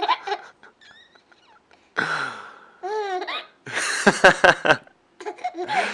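A three-month-old baby laughing, with a run of quick, breathy laugh pulses about four seconds in after a couple of short voiced squeals.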